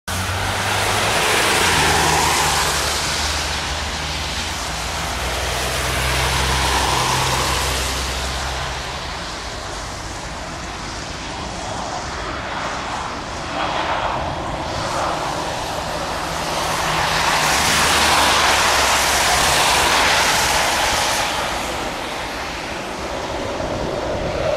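Airbus A320 jet engines running as the airliner taxis: a continuous rushing noise with a low hum underneath, swelling and easing several times and loudest a little past the middle.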